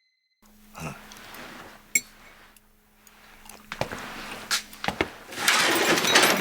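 Foley sound effects being performed in a studio: scattered clicks and knocks with light clinking, then a busier, louder run of clatter near the end.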